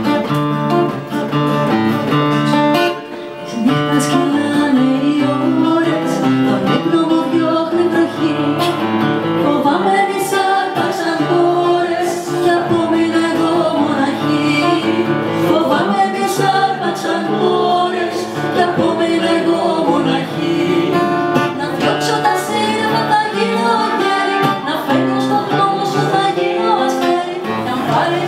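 Acoustic guitar accompanying a woman singing a Greek song, performed live.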